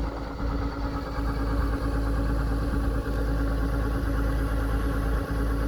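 Rice harvester's engine running steadily, with a constant hum over a low drone.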